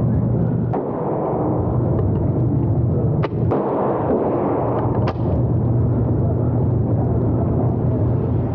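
Four sharp gunshot cracks at a shooting range, two of them close together in the middle, over a steady low rumble.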